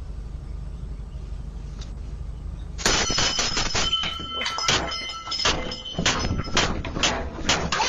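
A steady low hum, then about three seconds in a sudden run of loud, rapid bangs and crashes with ringing tones, as something is struck over and over.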